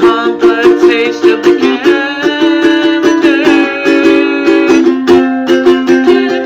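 Instrumental music: a ukulele strummed in a quick, even rhythm.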